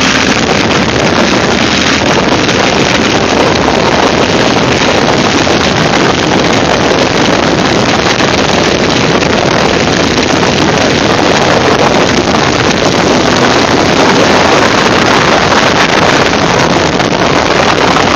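Loud, steady wind noise buffeting the microphone of a moving Ural sidecar motorcycle, with the bike's flat-twin engine running underneath.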